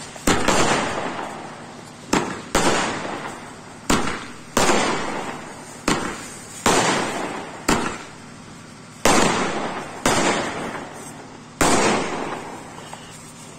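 Aerial fireworks bursting overhead: about a dozen sharp bangs come at uneven gaps of roughly a second, and each trails off over about a second.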